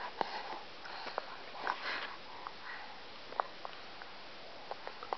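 Baby eating cereal from a spoon: scattered faint wet mouth clicks and smacks, with a few short breathy sniffs.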